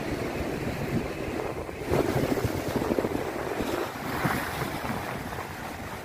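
Rough sea surf breaking and washing over concrete breakwater blocks, with wind buffeting the microphone. The surf swells louder about two seconds in and surges again near four seconds.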